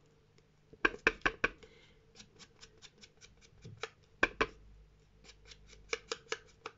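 Scissors snipping paper: a run of quick, crisp clicks, about four or five a second, with a few louder snips about a second in and again past four seconds.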